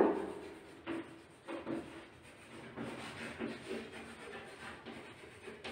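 Chalk on a blackboard as words are written out: faint, short, irregular scratches and taps.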